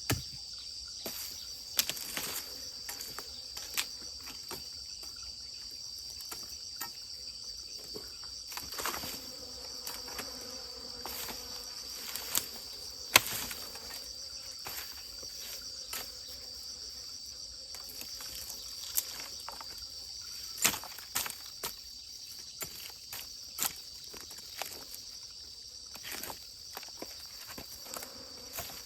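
Insects, crickets or similar, chirring steadily in a high, fine pulsing trill. Sharp clicks and knocks sound now and then, the loudest about halfway through.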